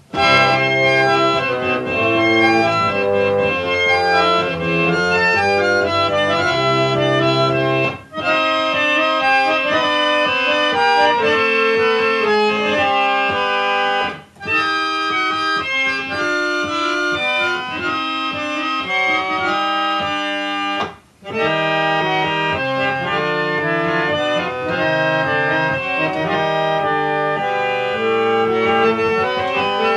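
1879 Clough and Warren reed pump organ playing a Baroque toccata in full chords, its reeds about 85% in tune. The music breaks off briefly three times, at about 8, 14 and 21 seconds, between phrases.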